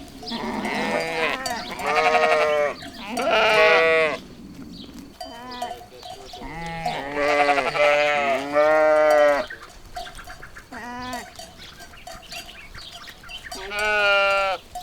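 Livestock bleating: a run of about eight pitched calls, each up to about a second long, some following close on one another, with a quieter gap around the ten- to thirteen-second mark.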